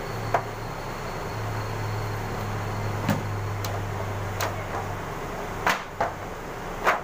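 Pandesal dough being rolled into logs by hand on a stainless-steel table: about six sharp slaps and thumps of dough and palms on the steel, the loudest near the end, over a steady low hum.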